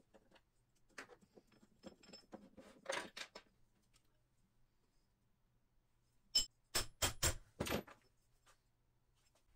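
Clinking and knocking of hard objects being handled: a scatter of light clicks in the first few seconds, then about five sharp, louder knocks near the end.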